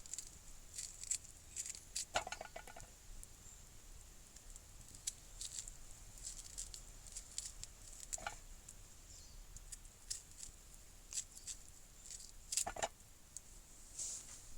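Wood campfire crackling and popping in irregular, faint clicks, with a few short ringing knocks about 2, 8 and 13 seconds in.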